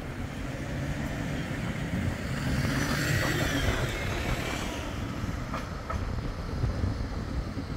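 Bombardier Flexity 2 tram approaching a stop over a low rumble. Its electric drive whines, growing louder and falling in pitch around three to four seconds in. Two sharp clicks come from the wheels on the track a couple of seconds later.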